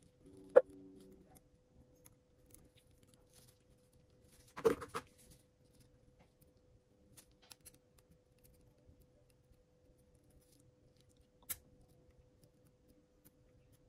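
A sharp click, then a short rattle of clicks a few seconds later and one more click near the end: small repair tools and parts being handled on a workbench. A faint steady hum runs underneath.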